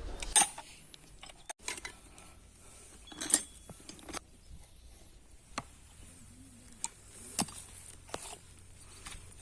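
Scattered light metallic clicks and clinks of motor parts and tools being handled while a new replacement part is fitted to a monoblock pump motor, one sharper clink about a third of the way in.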